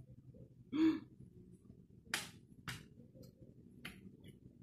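Person eating boiled beef by hand, close to the microphone. A brief voiced breath sound comes about a second in, then a few sharp, wet mouth smacks around two, nearly three and four seconds in, over faint room noise.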